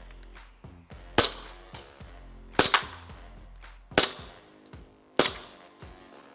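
Glock 17 Gen 4 green-gas blowback airsoft pistol firing single shots, each a sharp crack with the slide cycling: four shots a little over a second apart, and a fifth right at the end.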